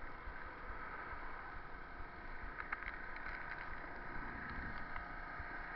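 Wind rumbling on a bike-mounted action camera's microphone with steady road noise during a bicycle ride, and a few light clicks about three seconds in.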